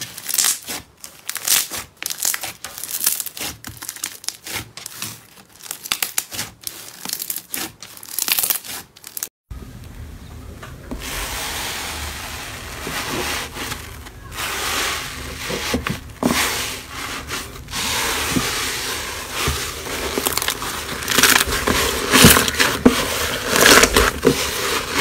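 Hands squeezing and kneading pink slime full of foam beads, giving quick crackling pops. About nine and a half seconds in it changes to fluffy teal cloud slime being poked and stretched apart: a denser fizzing crackle over a low steady hum, louder and crunchier near the end.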